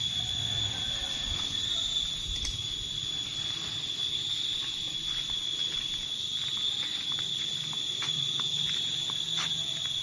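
Steady high-pitched drone of forest insects, with a few faint ticks in the second half and a low rumble in the first couple of seconds.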